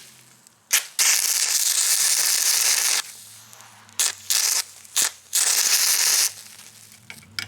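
Stick-welding arc powered by three car batteries, crackling and sizzling in stop-start bursts as tack welds are struck: one about two seconds long a second in, several short ones, then another near-second-long run about five seconds in. With no current control off the batteries, the arc runs too hot.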